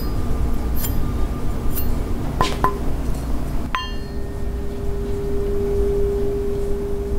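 A few faint clinks, then a sharp strike about four seconds in that rings on as one long, steady tone over a low hum.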